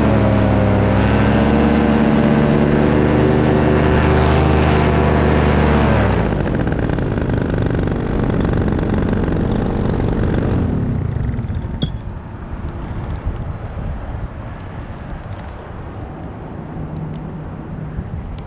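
Paramotor engine and propeller running at steady high power, throttled back about six seconds in and falling away about eleven seconds in, leaving wind noise on the microphone.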